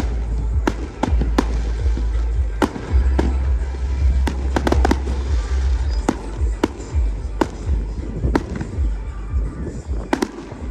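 Fireworks going off: irregular sharp bangs and cracks, roughly one a second with some in quick clusters, over a continuous deep rumble.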